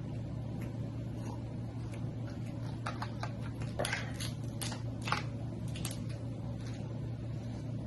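Close-up eating of snow crab legs: scattered sharp clicks and cracks of shell along with wet smacking and chewing, busiest in the middle, over a steady low hum.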